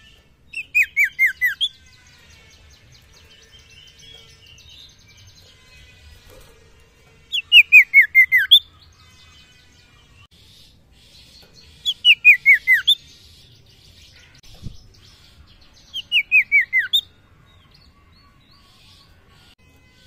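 Common iora (sirtu) calling: four loud phrases a few seconds apart, each a quick run of five or six downward-slurred whistled notes, with faint twittering between them. A single soft knock comes near three quarters of the way through.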